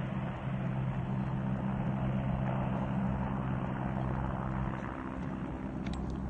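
Steady engine drone: a low hum with a rushing noise above it, unchanging throughout.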